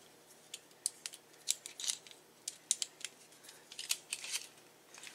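Irregular sharp clicks and short scraping rattles of a bipod being handled and adjusted, about a dozen in all, with a small cluster near the end.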